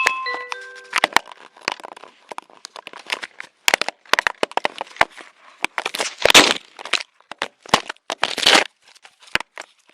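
Close, irregular scraping, knocking and crackling of a UniFi doorbell camera's housing against its own microphone as a bear claws and mouths it, with two louder scrapes in the second half. A short electronic chime of a few stepped tones sounds right at the start.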